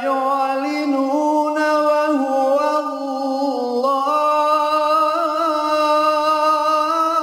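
A man reciting the Qur'an solo in melodic tajwid style, drawing out the end of a verse in one long, ornamented held phrase whose pitch wavers and turns. It ends just before the close.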